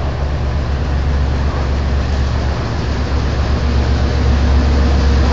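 Sri Lanka Railways M2-class diesel-electric locomotive running: a steady low engine rumble that slowly grows louder.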